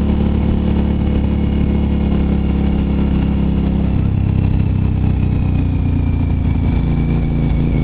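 Suzuki TL1000R's 996 cc V-twin engine running at low road speed; its note steps down about four seconds in, and a faint high whine slowly falls in pitch through the second half.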